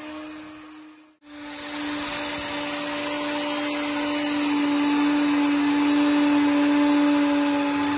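Router running at speed with a steady whine as its flattening bit is pushed across a board of walnut and epoxy, surfacing it. The sound cuts out for a moment about a second in, then carries on, growing louder over the last few seconds.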